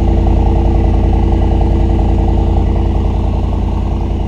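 Mercedes-AMG SL63's twin-turbo 4.0-litre V8 idling steadily just after start-up, with the sport exhaust switched on.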